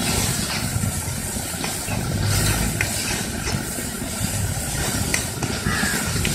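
Chopped onions and curry leaves sizzling in hot oil in an iron kadai as a spatula stirs them, with a few sharp clicks of the spatula against the pan over a low, uneven rumble.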